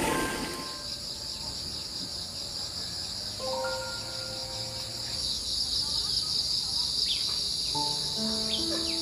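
Steady, high-pitched insect chorus of crickets or cicadas, with soft melodic background music of held notes. A few short chirps come in near the end.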